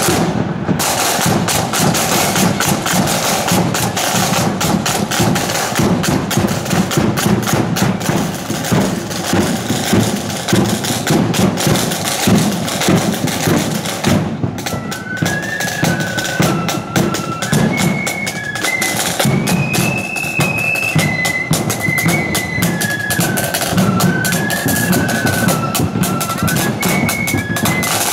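Marching flute band: side drums and bass drum beat out a marching rhythm, break off briefly about halfway through, then the flutes strike up a tune over the drums.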